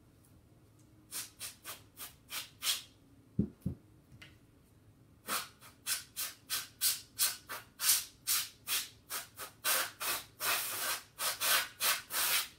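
Can of compressed air blown into a pistol's grip in many short hissing blasts through its straw nozzle, with a longer blast about ten seconds in. Two low knocks come about three and a half seconds in.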